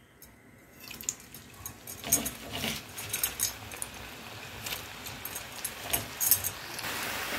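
Light clinks and knocks as cut potato sticks go into a wok of hot oil. Then the oil starts to sizzle, growing to a steady frying hiss near the end as the French fries begin to deep-fry.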